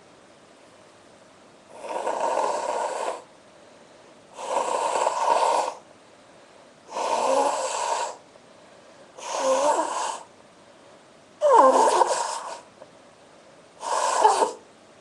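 A woman blowing her nose hard into a handkerchief, six forceful blows each about a second long, at an even pace of one every two seconds or so.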